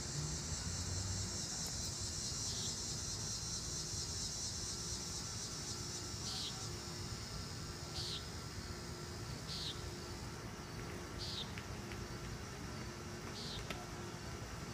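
Common nighthawk calling, a short peent given about seven times, roughly once every one and a half to two seconds. Behind it is a steady insect chorus of crickets or katydids that fades out about halfway through.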